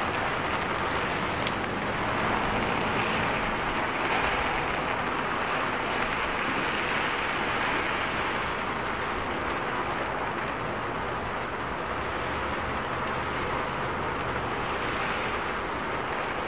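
Heavy rain falling in a steady hiss, with a low hum of traffic underneath.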